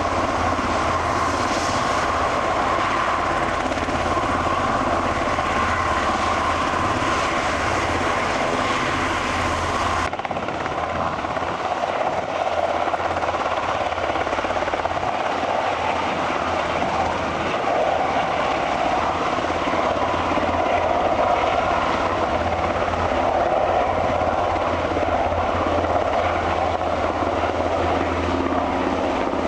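Sikorsky S-92 helicopters running at close range: a steady turbine whine over the noise of the rotors. About ten seconds in the sound changes abruptly to a second S-92 hovering and lifting off.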